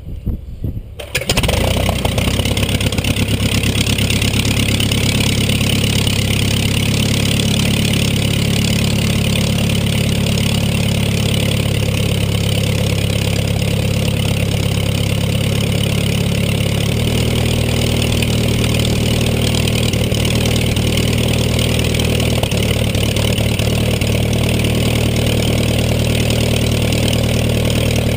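Menasco four-cylinder inverted inline engine of a Ryan STM coughing a few times, then catching about a second in and running steadily, its note shifting slightly about halfway through. This is the engine's first run in 35 years.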